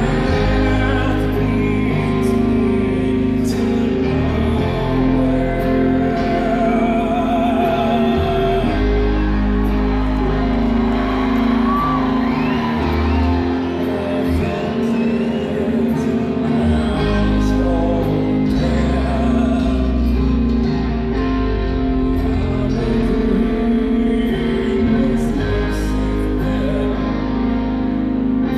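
Live rock band performing: electric guitars, bass and drums with a sung lead vocal, heard loud and steady from within the audience.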